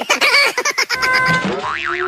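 Cartoon 'boing' sound effect: a short steady beep, then a springy pitch that wobbles rapidly up and down near the end.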